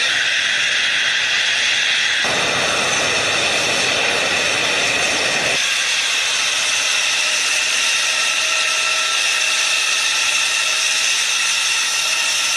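Tupolev Tu-160's four NK-32 turbofan engines running as the bomber taxis: a loud, steady jet whine over a hiss, with several high tones held throughout. From about two seconds in to about five and a half seconds in, a fuller, lower rush joins it.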